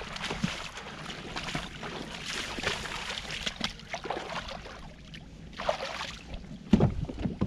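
Splashing steps through shallow marsh water in chest waders, with dry reeds swishing against the legs, in an irregular run. A heavier thump and splash near the end as he steps into the kayak.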